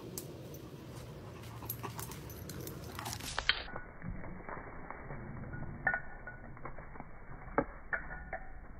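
A dog panting, with several sharp clicks.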